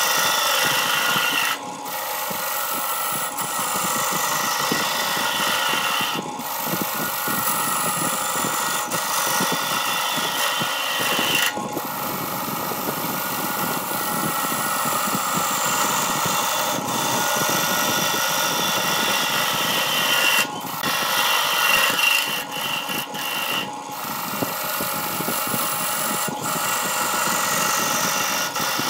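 Wood lathe running while a turning chisel cuts into a large spinning wooden blank: a steady motor whine under the scraping noise of the cut, with a few very brief dips.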